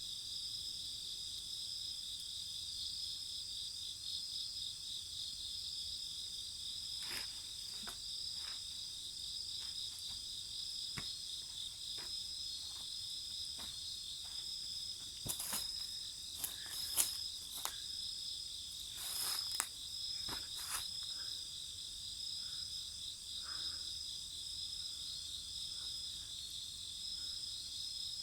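Steady high chirring of crickets and other insects, with scattered sharp crackles and pops from a wood fire, most of them bunched past the middle.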